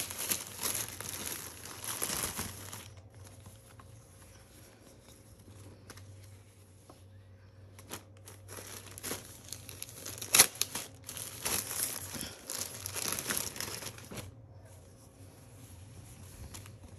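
Clear plastic garment bags crinkling as hands open them and pull clothes out, in two spells of rustling with a quieter lull between and one sharp snap of plastic in the second spell.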